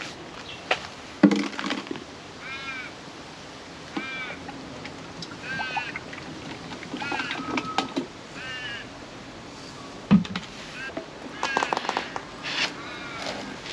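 A bird calling five times, a short arched call about every one and a half seconds, over sharp knocks and clicks from the plastic oil pourer jug and oil bottle being handled, the loudest a little over a second in and about ten seconds in.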